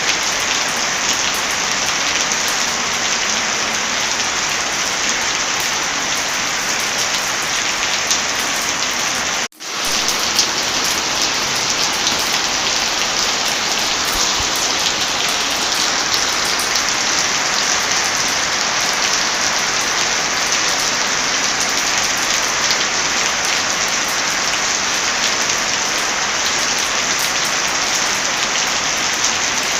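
Heavy rain falling, a steady dense hiss. It cuts out for an instant about nine and a half seconds in, then comes straight back.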